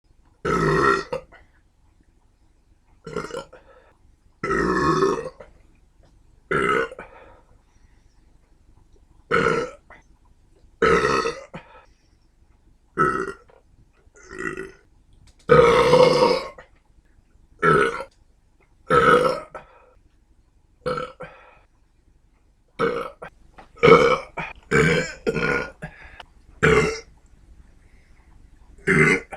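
A person burping over and over: about eighteen separate belches, each lasting half a second to a second, spaced one to two seconds apart, some long and drawn out, others short.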